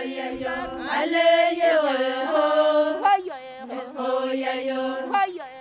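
Vocal chant music: several voices singing together in harmony, holding long notes and sliding between pitches.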